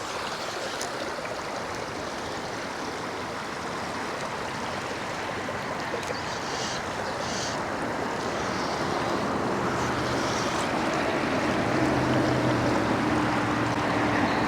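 Steady rush of a high mountain river running at high water, an even wash of water noise that grows slightly louder toward the end.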